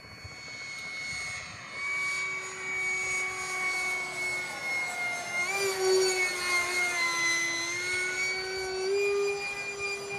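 Radio-controlled Eurofighter model jet flying overhead: a steady high engine whine over a lower hum. It grows louder about two seconds in, and its pitch wavers and dips in the middle before climbing again.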